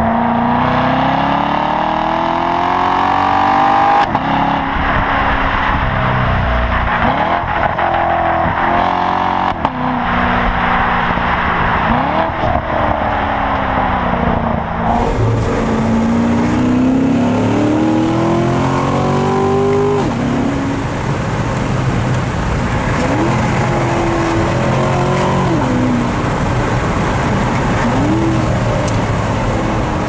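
Corvette C7 Stingray's 6.2-litre V8 accelerating hard through the gears, its pitch climbing and then dropping at each upshift. For the first half the sound is heard at the quad exhaust tips; from about halfway it is heard inside the cabin.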